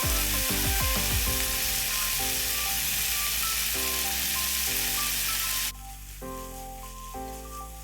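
Chicken strips, onion and mushrooms sizzling as they fry in oil in a pan, stopping abruptly about six seconds in. Background music with held notes plays throughout.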